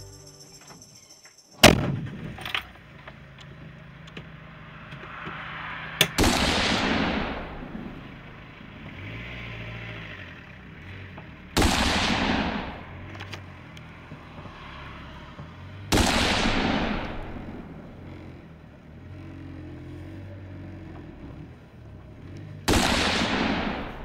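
Shotgun shots: a sharp crack about two seconds in, then four more shots several seconds apart, each trailing off in a rolling echo for a second or two. A vehicle engine hums low between them.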